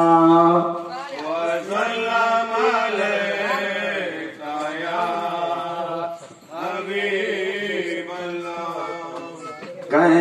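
A man singing a devotional kalam into a microphone, unaccompanied: a long held note that breaks off about half a second in, then a wavering, ornamented melody with two short breaths, swelling into a louder held note at the very end.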